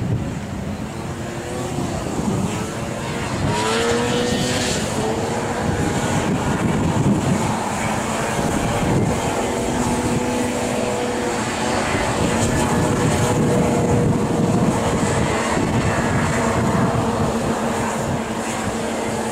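Several racing snowmobiles running flat out around an ice track, their engine notes rising and falling as they accelerate and pass. Wind buffets the microphone.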